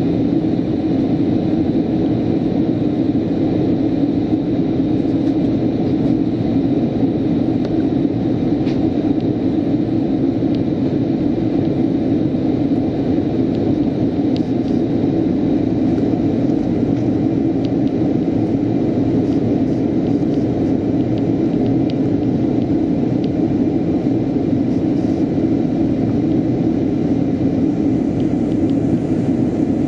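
Steady cabin noise inside an airliner in flight: turbofan engine and airflow as a constant low rumble, with a faint, high, steady whine above it.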